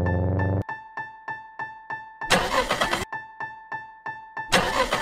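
Level-crossing warning bell dinging steadily, about three strokes a second. Over it, a car engine revs up and cuts off under a second in, then makes two rough bursts of cranking as it tries to start again, the second near the end.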